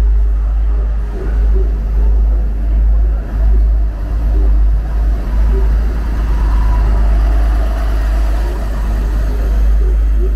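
Wind buffeting the microphone, a heavy low rumble that swells and dips in gusts, with faint whining tones over it.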